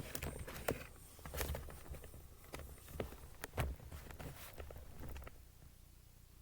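Scattered footsteps and light knocks over a low hum, all stopping about five seconds in.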